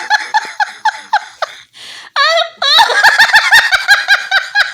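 A person laughing helplessly in rapid high-pitched bursts, about five a second, with a gasping in-breath midway. The laughter is set off by a bout of hiccups that won't stop.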